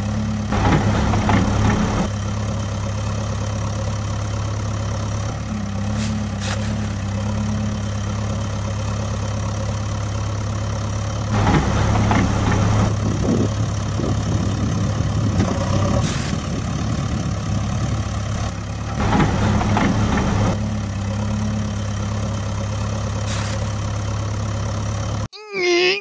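Heavy diesel excavator engine sound effect running steadily, laid over a toy excavator digging sand. It grows louder for a second or two several times and cuts off suddenly near the end.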